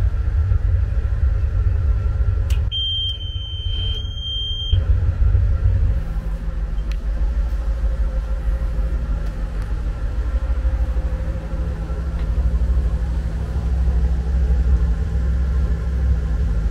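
Steady low engine rumble, as heard inside a running vehicle. About three seconds in, a single high-pitched beep holds steady for about two seconds.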